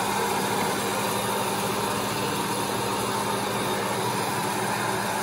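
Electric popcorn maker running with a steady whir.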